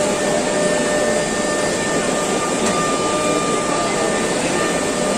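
Steady din of a busy exhibition hall with a large-format UV printer running, a faint steady whine sitting under the noise.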